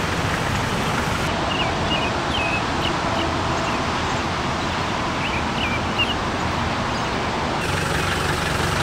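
Steady hum of road traffic, with a small bird giving short high chirps in two runs, around two seconds in and again around five seconds in.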